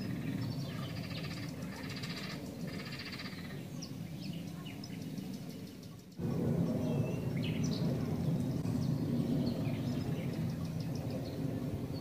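Riverside outdoor ambience: scattered bird chirps and calls over a steady low rumble. About six seconds in the sound drops briefly, then comes back louder.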